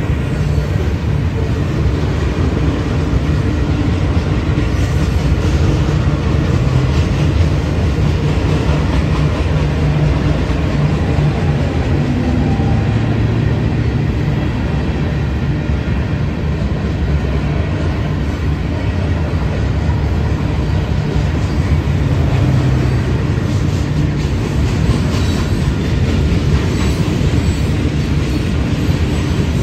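Union Pacific freight train rolling past, a steady heavy rumble of its cars on the rails.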